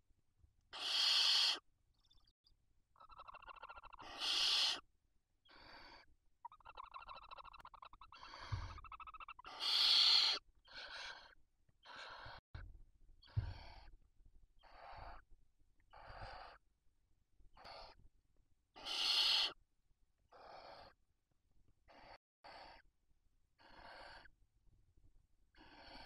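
Barn owls giving a series of rasping hisses, each under a second, about twenty in all; the loudest come about a second in and near four, ten and nineteen seconds. Softer chittering calls fall between them, around three and seven seconds in.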